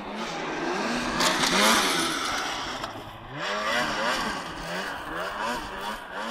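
Snowmobile engine revving up and down over and over as the sled runs a cross track, its pitch rising and falling several times, loudest a little over a second in.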